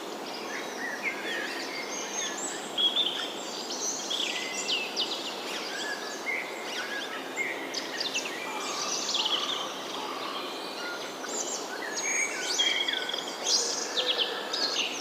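Several birds singing and chirping at once, short trills and quick sweeping notes overlapping, over a steady background hiss.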